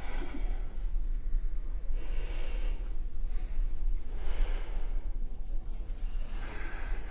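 A woman taking slow, deep breaths, about three hissy swells a couple of seconds apart, as for a stethoscope check of the lungs.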